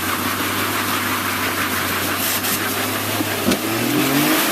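Off-road 4x4's engine running steadily under light throttle as it works over rocks, rising in pitch near the end as it takes more throttle.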